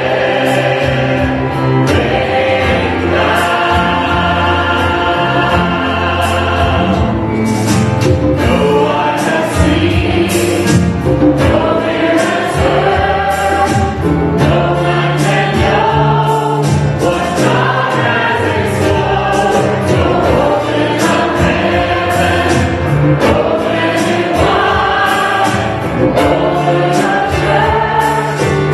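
Church worship band and choir performing a contemporary praise song: lead vocalists and a mixed choir singing together over piano, drums and guitars.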